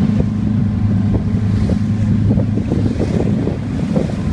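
A boat engine runs with a steady hum under heavy wind buffeting on the microphone and rushing water. The wind and water noise swell in the middle and partly cover the engine.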